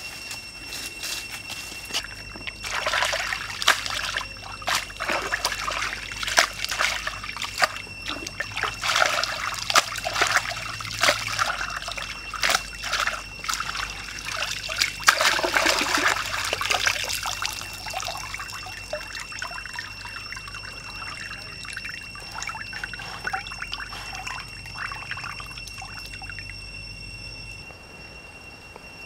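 Water splashing and sloshing as a woven bamboo basket of raw pig intestine is dunked and rinsed by hand, busiest through the middle, then easing off to soft trickles and dribbles.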